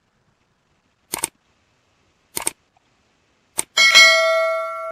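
Three short clicks about a second apart, then a loud bell-like chime of several steady ringing tones that slowly fades and cuts off suddenly.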